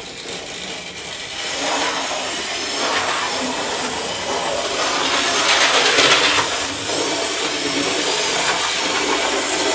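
Thomas the Tank Engine model locomotive running on the layout: its small electric motor whirs steadily, with the wheels running on the rails. It builds up about a second and a half in and is loudest around the middle. It runs a little jerkily, which the owner puts down to track that might need cleaning.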